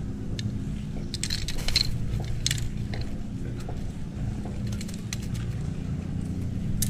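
Light clicks and rattles from a plastic fish lip-grip being handled, over a steady low engine hum.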